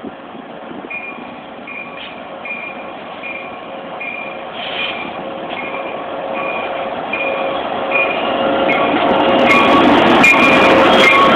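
Loaded coal train led by an EMD SD70MAC diesel locomotive approaching and passing close, its engine and wheel noise growing steadily louder. A warning bell dings about once every 0.7 s. From about nine and a half seconds in, sharp clicks of wheels over rail joints come as the locomotive rolls by.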